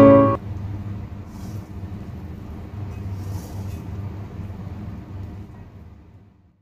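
Low steady rumble of kitchen background noise, with two faint soft scrapes as a slotted spoon turns biryani rice on a metal tray, fading out near the end. A plucked-string music track cuts off just at the start.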